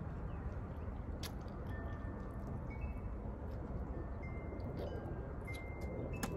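Wind chimes ringing now and then: single clear notes at a few different pitches, each fading within about half a second, over a steady low rumble. A couple of sharp clicks cut in, about a second in and near the end.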